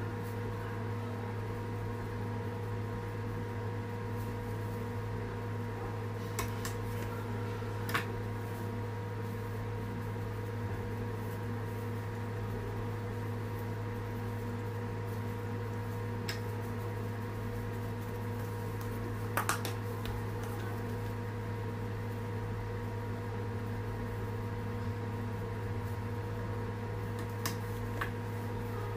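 A steady low hum from a running machine, unchanging throughout, with a few light clicks and taps scattered through it.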